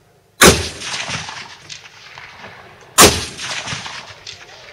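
Two rifle shots on a 300 m shooting range, about two and a half seconds apart, each a sharp crack followed by a long echoing tail.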